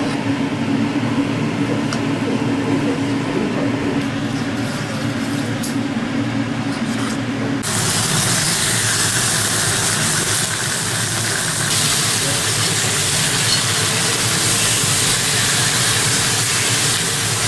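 A steady low hum for the first half. From about eight seconds in, beef slices sizzle loudly and evenly on a hot ribbed cast-iron grill pan.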